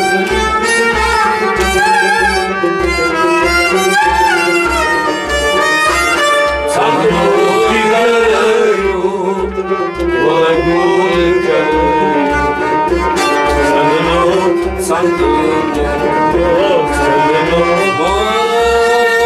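Kashmiri Sufi folk ensemble playing an instrumental passage: harmonium and bowed sarangi carry a wavering melody while a clay pot drum keeps a steady beat of about two strokes a second.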